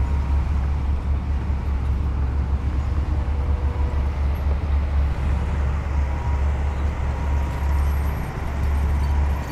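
Heavy diesel earthmoving machinery running steadily, a continuous low engine rumble.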